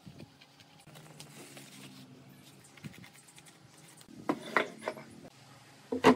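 Paper being cut and handled with a utility knife on a wooden workbench: faint scratching and rustling. About four seconds in comes a quick series of loud knocks and clatters on the bench, and near the end a single sharp knock, the loudest sound, as a wooden slab is set down on the benchtop.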